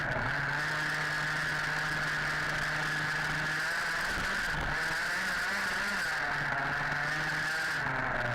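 Two-stroke petrol engine of an HPI Baja 5B 1/5-scale RC buggy running at speed, heard close from the onboard camera. It holds a fairly even pitch, dipping briefly as the throttle is eased about four seconds in and again near the end.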